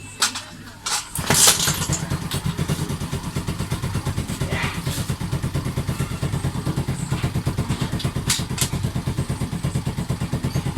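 A few light clicks, then about a second in a Suzuki Raider underbone motorcycle's engine starts and settles into a steady idle. It is the bike's own engine sound, with the big-bike sound speaker still switched off.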